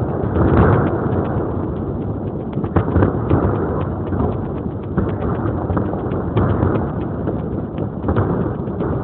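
Fireworks going off in a dense, continuous barrage: overlapping booms under many rapid sharp cracks, with no pause.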